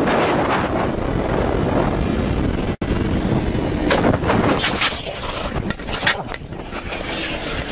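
Motorcycle crash: loud rushing, scraping noise with several sharp knocks as the bike strikes and then slides on its side along the road, metal grinding on the asphalt.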